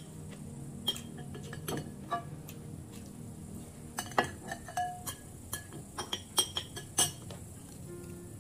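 Metal spoon clinking and scraping against a glass bowl: a string of sharp clinks, most of them packed into the second half.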